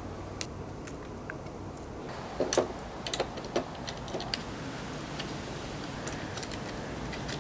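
A scattered series of light clicks and knocks, loudest in a short cluster about two and a half seconds in.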